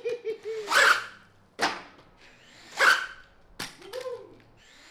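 A dog barking, a few short sharp barks about a second apart, with a shorter call near the end.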